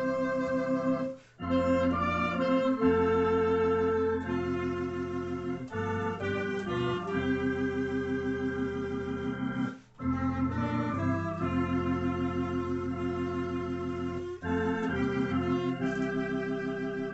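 Tokai T1 electronic organ and clarinet playing a stately hymn in 9/8 time in F major, with held chords. The music breaks off briefly between phrases, about a second in and again near the ten-second mark.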